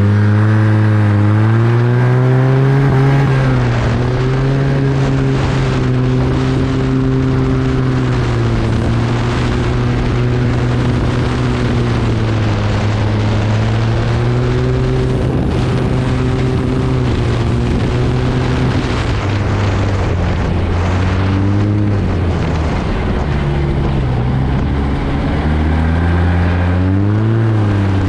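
Arctic Cat 1100 Turbo snowmobile's turbocharged three-cylinder four-stroke engine running under way. Its note climbs in the first few seconds, holds fairly steady, then eases and picks up with the throttle, with a short rise and fall near the end, over a steady rush of wind noise.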